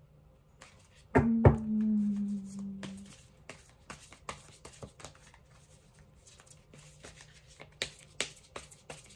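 Two sharp knocks about a second in, followed by a low ringing tone that fades out over about two seconds. Then tarot cards are shuffled and handled, with many quick light clicks.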